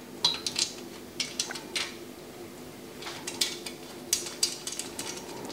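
Light metallic clicks and clinks of stainless steel nuts and bolts being turned by hand on a CNC-machined aluminium pannier mounting plate. They come as a run of clicks in the first two seconds and another from about three seconds in.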